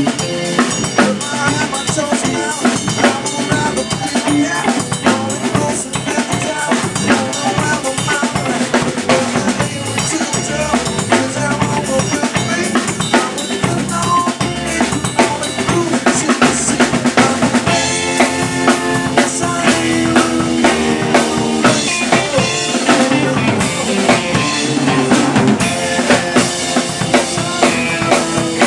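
Rock band playing live, the drum kit to the fore with steady snare and bass-drum hits over the sustained pitched sound of the other instruments.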